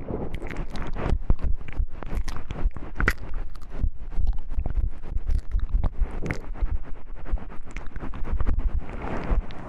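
Close-miked ASMR handling of a wooden object: a dense, irregular run of scratchy scraping and small clicks with a heavy low rumble from contact with the microphone.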